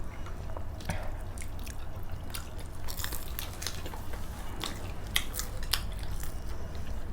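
People chewing and biting food close to the microphone, with many small, sharp crunching clicks scattered throughout, over a steady low hum.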